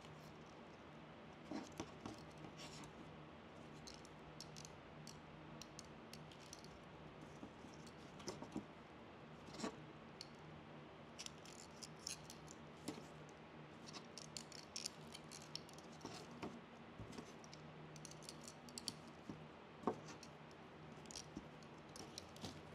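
Faint crackling and scratching of dry moss being pressed and wired onto a wreath frame, with scattered small clicks throughout. A low steady hum runs underneath.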